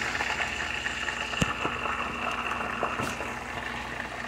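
Breaded chicken thighs sizzling steadily in a pan of coconut-milk sauce, with two light clicks, about a second and a half and three seconds in.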